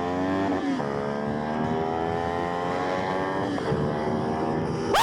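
Motorcycle engine running at a steady cruise with a brief dip in pitch about a second in, as at a gear change. A sudden loud surge comes in at the very end.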